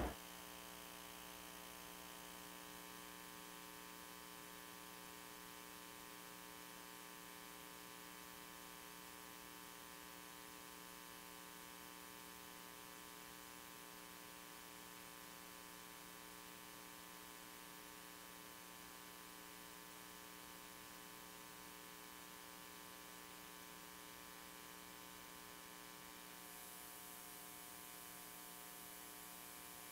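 Near silence: a faint, steady electrical hum in place of the muted train sound.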